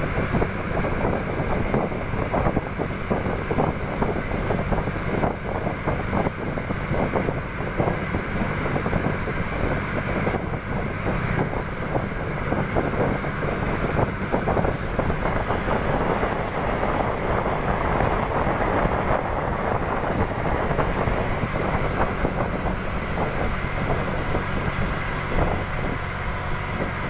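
Wind buffeting the microphone over the steady running and road noise of a vehicle driving along.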